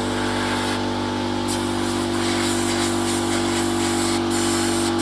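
A motor running steadily with an even hum of several tones and a hiss, having started abruptly just before.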